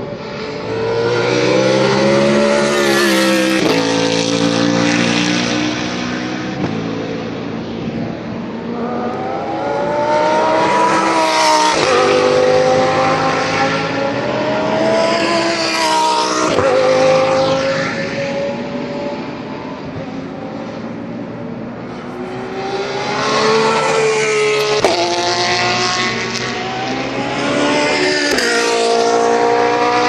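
GT3 race cars accelerating hard past one after another, each engine climbing in pitch through the gears with a sharp drop at every upshift, swelling and fading as it goes by.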